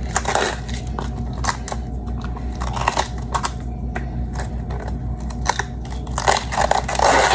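Crisp raw cabbage leaves being peeled and snapped off the head by hand: scattered crunching and crackling, thicker near the end, over a steady low hum.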